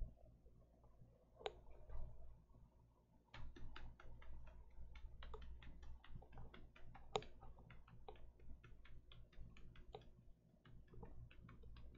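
Faint typing on a computer keyboard: a few single key clicks, then from about three seconds in a quick, irregular run of clicks, several a second.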